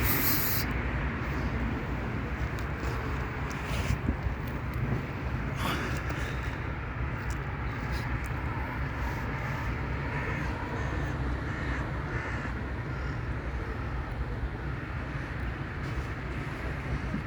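Crows cawing several times over a steady low background rumble, with two short sharp noises about four and six seconds in.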